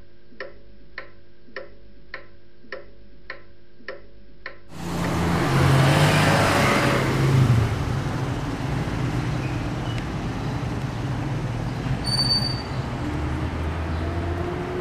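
A ticking clock, a bit under two ticks a second, in a quiet room. About five seconds in, this cuts to street traffic: a vehicle passes loudly, then traffic noise runs on steadily.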